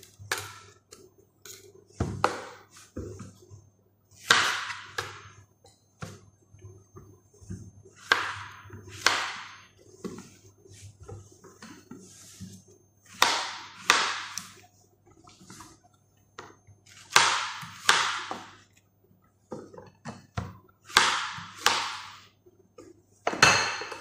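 Vegetables being sliced with a kitchen knife: short scraping cuts, mostly in pairs, every four seconds or so, with a couple of knocks on the board near the start.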